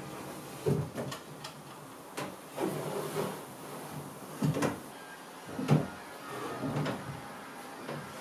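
Wooden drawers of a chest of drawers sliding open and pushed shut, one after another, with a knock as each one closes. There are about seven of these slides and knocks in all.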